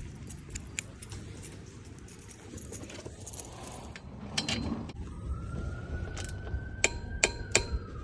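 Small metal objects being handled, with several sharp clicks and light rattling, closest together near the end. A steady high tone starts about five seconds in and slowly rises.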